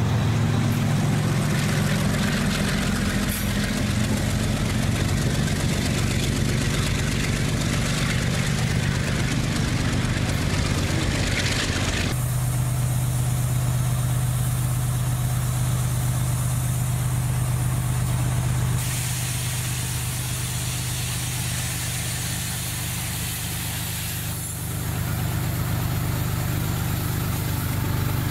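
Diesel freight locomotive engines running with a steady low drone. The sound changes abruptly about twelve seconds in and again later, as the scene cuts from one train to another.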